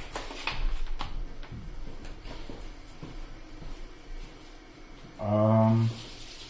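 Trading cards being handled: light clicks and rustles of cards and packaging early on. About five seconds in there is a short, steady low hum, a voiced "hmm".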